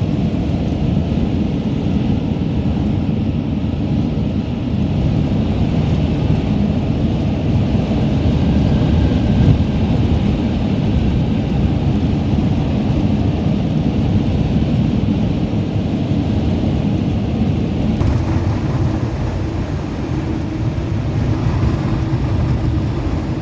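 Strong wind buffeting a Sprinter van as it drives on an icy road, a steady loud low rumble of wind and road noise; the gusts are strong enough to push the van sideways across the ice.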